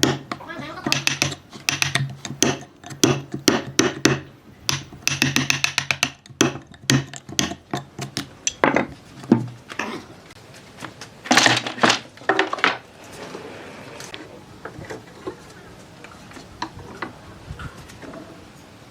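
Hand tools knocking and tapping on wood: rapid, irregular strikes for about ten seconds, a few harder blows a little later, then only occasional light taps.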